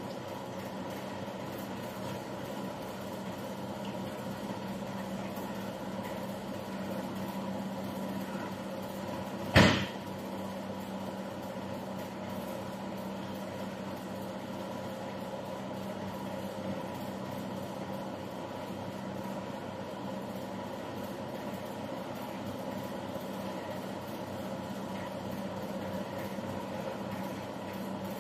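Rotational moulding machine for plastic wheelbarrow trays running with a steady mechanical hum, heating the mould. A single sharp knock sounds about ten seconds in.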